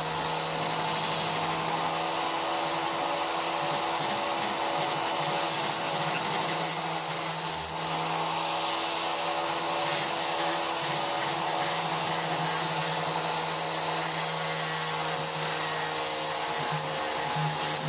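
A small electric motor running steadily at one speed, with a constant hum under an even whirring hiss.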